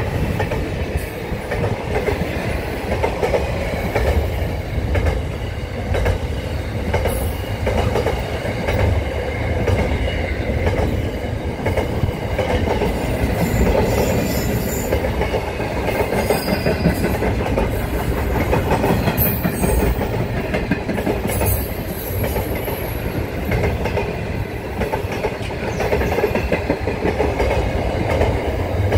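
A container freight train's wagons rolling past at speed: a steady rumble of wheels on rail, with a rhythmic clickety-clack over the rail joints. A few brief high squeals come through, mostly in the middle.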